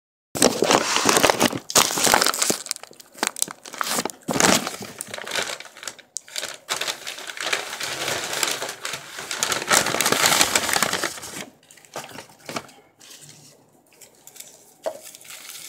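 Brown paper takeout bag rustling and crinkling as food is pulled out, then aluminium foil crinkling around a wrapped burrito. The rustling is loud and dense for the first ten seconds or so, then softer and more scattered.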